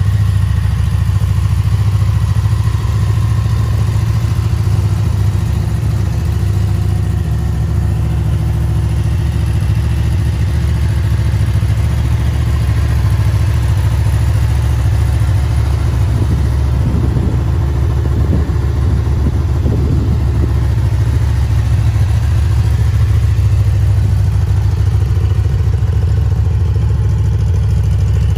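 Honda VFR800X Crossrunner's V4 engine idling steadily.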